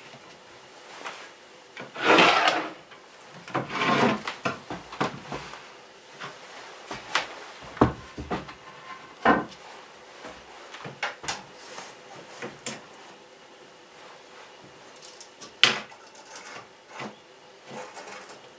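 A wooden board sliding and scraping across a wooden countertop twice, then scattered knocks and clicks as tools and wood are handled and set down on the counter, one sharp knock late on.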